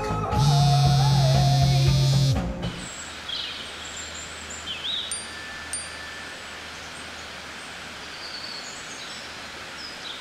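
A mobile phone vibrating on a wooden bedside table: one steady buzz of about two seconds. A cut follows to quiet outdoor ambience with a low steady rumble and scattered bird chirps.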